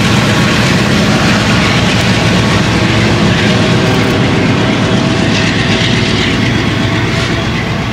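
Diesel freight locomotives working a train past and away, their engines running loud and steady over the rumble of wheels on rail, easing off slightly near the end.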